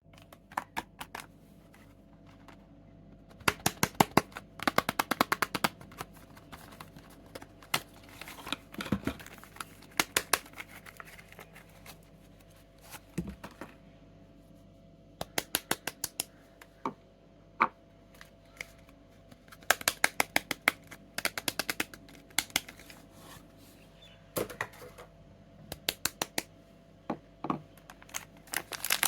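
Soap packaging being handled, heard as quick clusters of sharp clicks and taps with short pauses between them.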